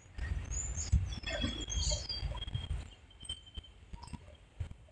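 Uneven low gusts like wind buffeting the microphone, with a few short high bird chirps in the first half and a thin, steady high tone through the middle.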